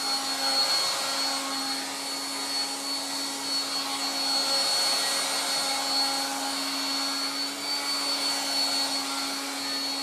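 1960s Dateline DLMD hairdryer running: its blower fan gives a steady rush of air with a low hum and a thin high whine.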